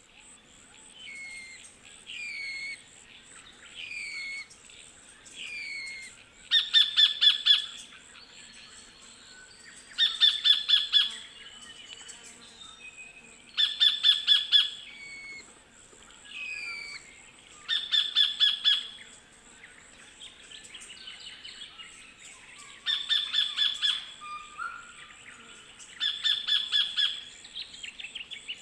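Sacred kingfisher calling: squeaky falling calls about every second and a half for the first six seconds, then louder bursts of rapid repeated sharp notes about every three to four seconds.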